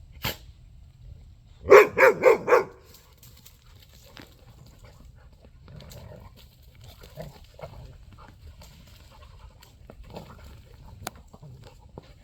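Dog barking four times in quick succession, about two seconds in, during rough play.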